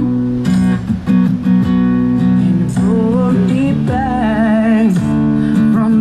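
A song on acoustic guitar, strummed, with a singing voice coming in about three seconds in.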